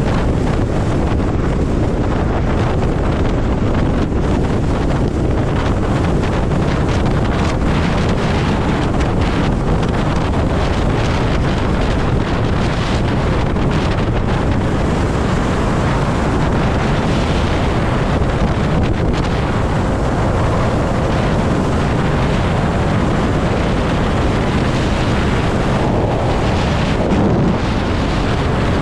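Steady, loud wind rush over the microphone of a Zero electric motorcycle riding at about 70 mph on the highway. The motorcycle is electric, so there is no engine note under the wind and road noise.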